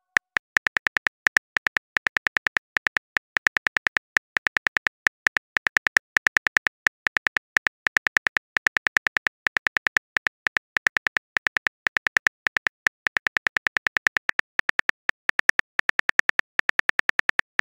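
Keyboard tap sound effects of a texting-story app: a long run of short, identical clicks, about five a second with brief pauses, as a message is typed out. At the very end a quick rising swoosh as the message is sent.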